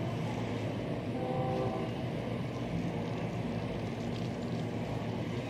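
Distant freight train rolling past, a steady low rumble of the wagons on the rails, with a brief faint tone about a second in.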